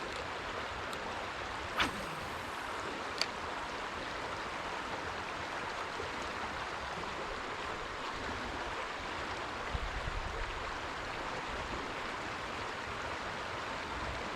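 Steady rush of creek water running over shallows, with two brief clicks about two and three seconds in.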